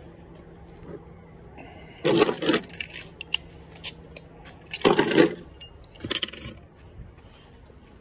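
A glass beer bottle being handled and opened: metal clinks and scrapes as the cap is worked off, with two louder noisy bursts about two and five seconds in.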